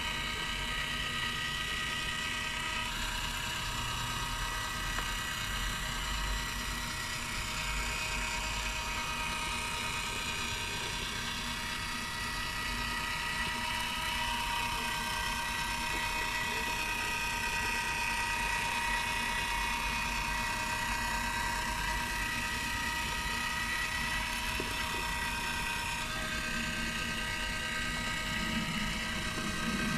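Motor and gears of a Lemax Spooky Town animated Halloween display running steadily, an even mechanical whir with several steady high tones, one of which drops out near the end.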